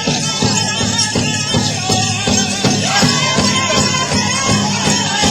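Powwow drum group playing: several drummers strike a large shared drum in a steady, even beat while the singers sing high above it.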